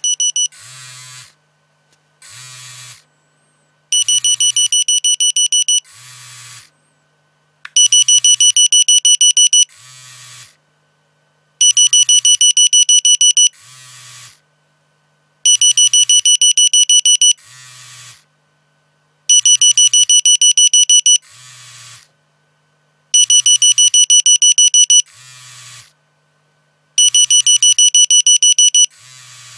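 Nokia mobile phone alarm tone: rapid high-pitched electronic beeping in bursts of about two seconds, repeating roughly every four seconds. Each burst is followed by a quieter buzz lasting about a second.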